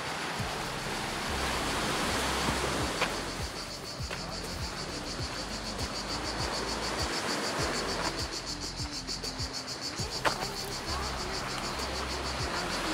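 Insects shrilling in the trees: a continuous high-pitched, fast-pulsing chorus over a steady hiss. Two sharp clicks stand out, about three seconds in and about ten seconds in.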